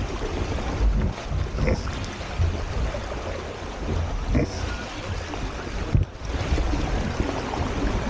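Wind buffeting the camera microphone over water rushing and splashing along the hulls of a Hobie Tiger F18 catamaran under sail, with a brief lull about six seconds in.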